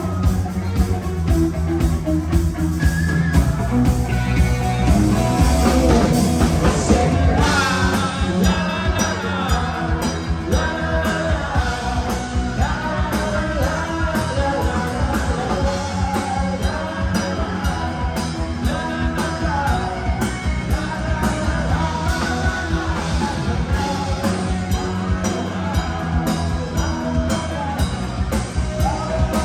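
Live rock band playing a song with a singer over it.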